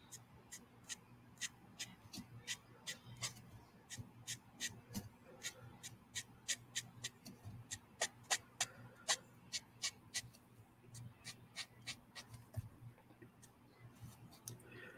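Copic marker nib flicked across paper in quick, short strokes to colour hair: a steady run of light ticks, about two to three a second.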